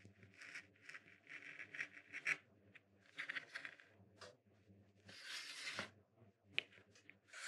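Small wood-handled carving knife cutting into a thin plywood woodblock: a run of short, faint scratching strokes with a few sharp ticks.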